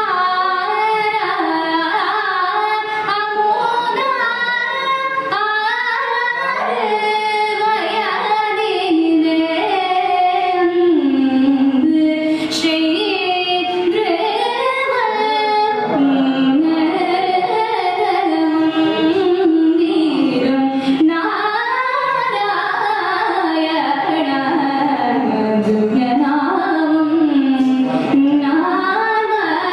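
A woman singing a Carnatic devotional song into a handheld microphone, her voice gliding through ornamented melodic phrases without a break.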